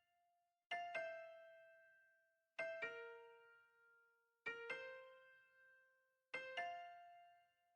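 Quiet background music of slow keyboard notes: a pair of notes struck about every two seconds, each left to ring out and fade.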